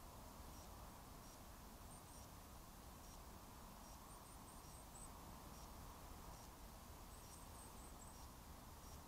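Faint, very high, thin songbird calls over a low steady hiss: a pair of short notes about two seconds in, then two quick runs of about five notes each, around four and seven seconds in, the first run ending on a note that drops in pitch.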